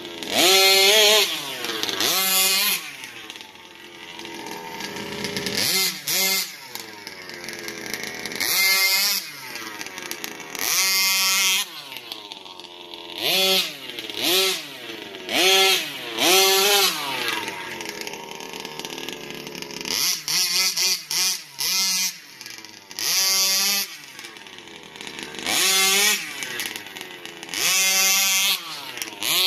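Large-scale RC buggy's small two-stroke engine revving hard again and again, rising in pitch with each throttle burst and falling back to a lower note between bursts as the car is driven about.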